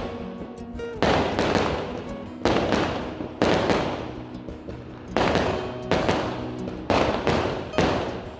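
Fireworks going off one after another: a sharp bang every second or so, each trailing off in a hiss, with background music underneath.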